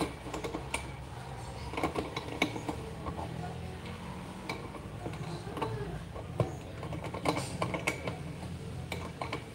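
Scattered light clicks and taps over a low steady hum.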